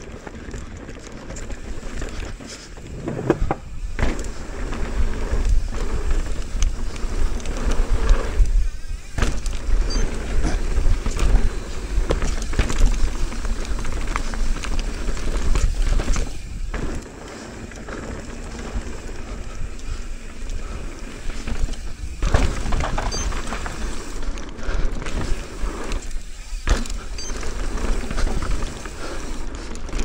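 Mountain bike riding fast down a loose dirt downhill trail: tyres crunching and sliding over loose dirt, with the bike rattling and knocking over bumps and a heavy low rumble. The noise drops away briefly several times, around four, nine, seventeen, twenty-two and twenty-six seconds in.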